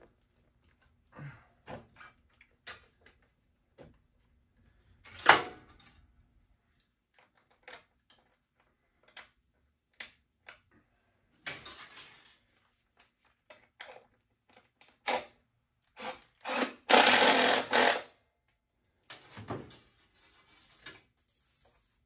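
Hand tools clicking and knocking against metal as fasteners are tightened down on a Honda S65 motorcycle: scattered single clicks, one sharp loud click about five seconds in, a few quick rattling runs, and a louder noisy stretch of about a second and a half near the end.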